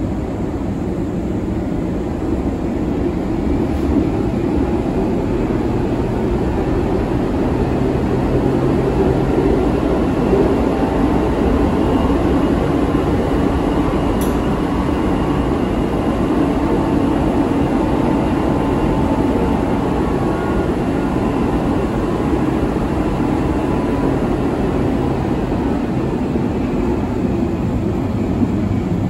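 A Berlin U-Bahn F90 train with three-phase AC traction running, heard from inside the car: a steady rumble of wheels on the rails with faint whining tones from the drive.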